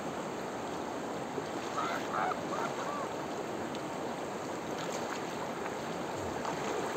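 Shallow river water rushing over rocks in small rapids, a steady rush, with a few faint short high sounds about two seconds in.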